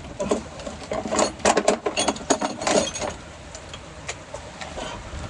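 Rapid, irregular clicking and clanking of hand tools on metal, busiest in the middle, over a steady hiss of rain.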